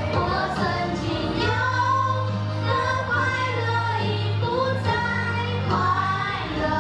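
A song with a high singing voice over instrumental backing with a steady bass line.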